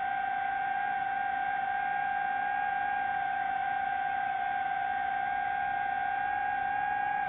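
DJI FPV drone's motors and propellers giving a steady whine at one held pitch over a rushing hiss, the throttle held constant.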